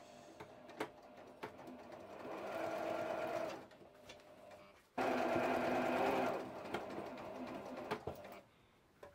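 Janome electric sewing machine stitching a seam through cotton fabric, running in two short spells with light clicks between them. The second spell starts abruptly about halfway through and is the louder.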